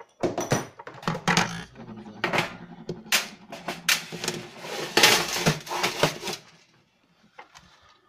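Handling clatter: a plastic router case and screwdriver knocking on a wooden desk, then a denser rattle of plastic antennas and small screws going into a metal tin, loudest about five to six seconds in.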